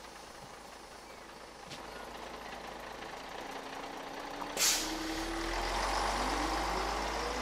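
Single-decker bus pulling away from a stop: its engine running, a sharp hiss of air brakes about four and a half seconds in, then a steadily rising whine as it accelerates.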